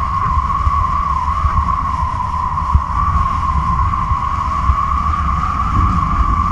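Wind rushing over a camera carried up on a kite: a steady low buffeting rumble under a constant, slightly wavering whistling hum.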